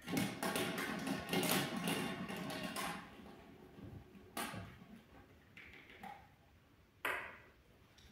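Plastic draw capsules rattling and clicking against each other and the glass as a hand stirs them in a glass fishbowl. Two single sharp plastic clicks follow, about four and seven seconds in, as a capsule is handled.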